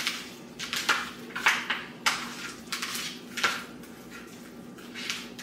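Light clinks and knocks of seasoning jars and kitchen items on a countertop, about six of them at irregular moments, while raw chicken is rubbed with seasoning by hand. A faint steady hum runs underneath.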